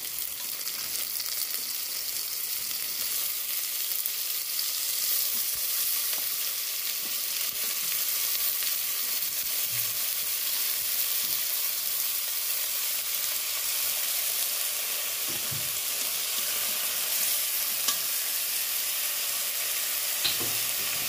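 Raw chicken pieces sizzling in hot oil in a metal pot with sautéed ginger, garlic and onion: a steady hiss, with a few faint knocks as pieces go into the pot.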